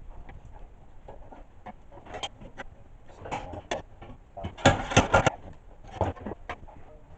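Sheet metal being worked at a bench vise to fold it: irregular knocks and clatter, with a quick run of several sharp strikes about five seconds in.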